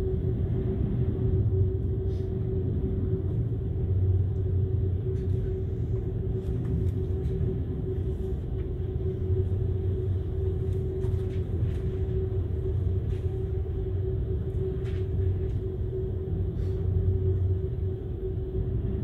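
Steady low rumble with a constant mid-pitched hum, heard on board a ferry in storm-force wind, with a few faint ticks and clicks over it.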